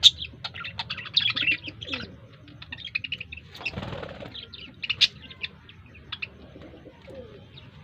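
Several birds chirping in quick, short notes, thickest in the first two seconds, with a few lower sliding notes among them. About four seconds in there is a brief rush of noise like fluttering wings.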